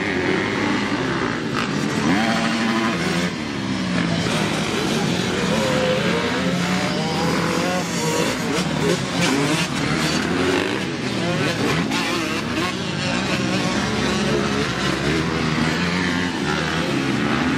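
Several motocross dirt bikes racing, their engines revving up and falling off again and again, overlapping one another.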